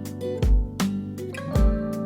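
Background music: acoustic guitar with a steady beat, a low kick drum hitting about once a second.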